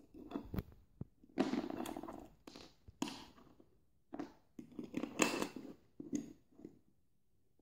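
Plastic toy figures and accessories being handled and set down on a wooden floor: irregular clicks, taps and rustling.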